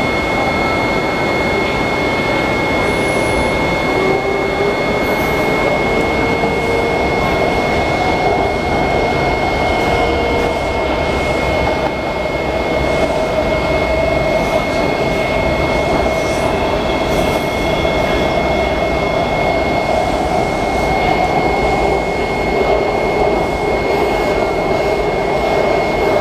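Inside a WMATA 7000-series Metro railcar under way in the tunnel: a steady running rumble of wheels on rail, with a motor whine that climbs in pitch over the first few seconds as the train pulls away from the station and then holds roughly level. A thin, steady high tone sits over it throughout.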